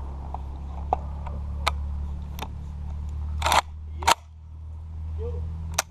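Saiga-12 semi-automatic shotgun being handled after firing: a run of light metal clicks, then a rattling scrape and a sharp, loud clack a little past halfway as the drum magazine comes off, and one more clack near the end.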